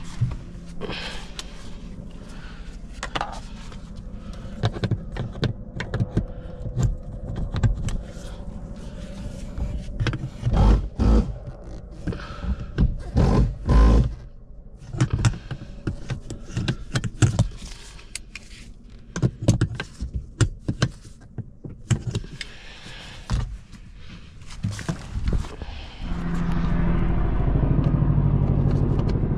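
Irregular knocks, clicks, scrapes and light metallic jingles from tools and parts being handled around a car. About 26 seconds in, a steady low rumble begins and holds.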